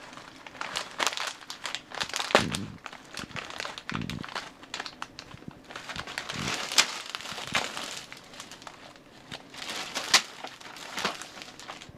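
Packaging crinkling and tearing in irregular bursts as a pet monkey rips open a parcel.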